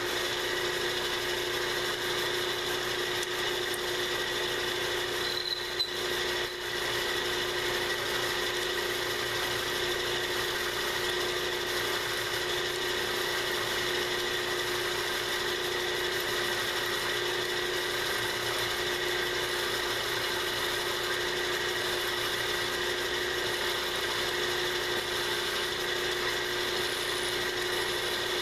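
Milling machine spindle running with a steady whine while a center-cutting end mill plunges into a metal plate in small pecks, lubricated with cutting fluid.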